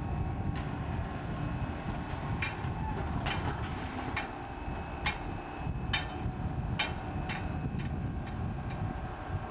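Intermodal lift crane lowering a highway trailer onto a railroad flatcar: a steady low rumble with about eight sharp metallic clicks at irregular intervals, starting about two seconds in.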